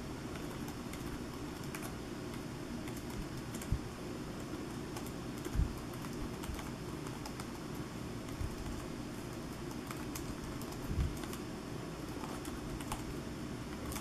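Keys clicking on the OneGx1 mini laptop's small keyboard, pressed one at a time by a single typing hand at an irregular pace, with a few duller thumps, over a steady low hum.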